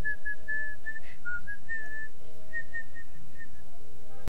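A person whistling a simple tune, a run of short and held notes at changing pitches that stops about three and a half seconds in.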